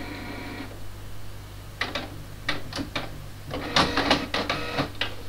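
Canon PIXMA MP250 inkjet printer starting a print job: a steady motor whine stops less than a second in, then a run of clicks and short mechanical whirs as the mechanism begins printing.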